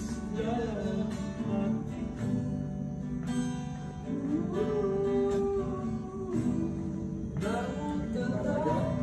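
Acoustic guitar being strummed, with a voice singing along, holding one long note midway.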